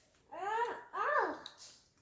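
A toddler's wordless vocalising: two short, high sing-song syllables, each rising and then falling in pitch.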